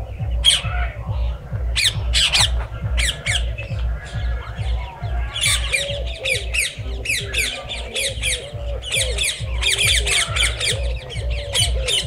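A flock of small parakeets squawking and chattering: many short, sharp, high calls, thickening into a dense chorus from about halfway through.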